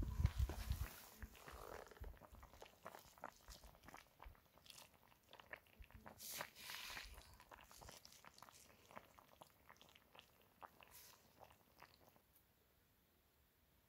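A pan of Korean spicy braised chicken simmering over a fire: faint, irregular pops and crackles, with a brief hiss about six seconds in, dying away near the end.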